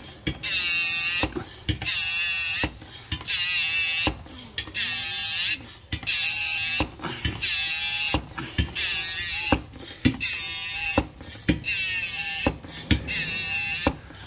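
Hand-operated transmission fluid pump worked in steady strokes, about one every second and a half, pushing fluid through a hose into a 6L50 six-speed automatic gearbox. Each stroke is a wavering, pitched buzz, with a click between strokes.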